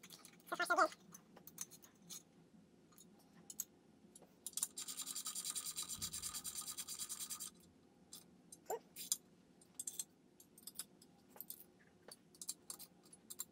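Small hand ratchet clicking, with light metal taps and scrapes, as Allen head screws are run down and snugged into the ignition coil conversion plates on an engine's cam covers. About five seconds in comes roughly three seconds of rapid, even ratchet clicking.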